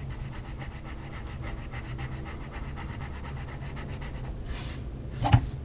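Coloured pencil scratching across the paper of a colouring book in quick, repeated back-and-forth shading strokes. A sharp knock comes near the end.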